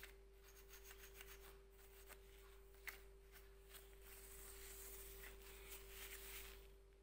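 Faint rubbing and scraping of a paper tissue wiped along the metal grid and wires of a photocopier corona unit, with a few small ticks, over a steady hum.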